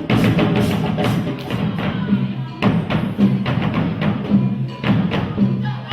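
Afro-Brazilian percussion group playing drums in a steady rhythm, with low drum beats about twice a second and sharp, fast strikes layered over them.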